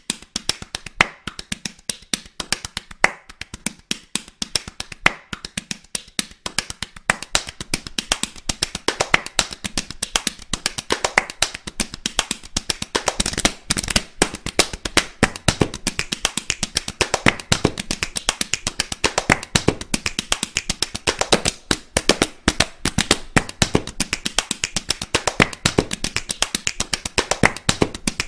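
Fast drumming: a dense run of sharp drum strikes, many per second. The strikes are somewhat sparser in the first few seconds and then pack closer together.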